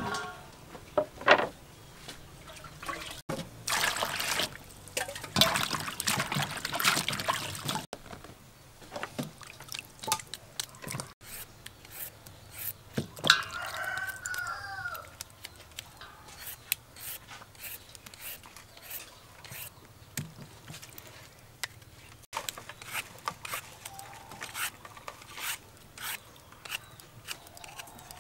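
Vegetables are sloshed and splashed in a steel bowl of water for a few seconds. A rooster crows once about halfway through. After that comes a run of quick sharp scrapes and ticks as a grooved peeler cuts strips off a green fruit over the bowl, with water dripping.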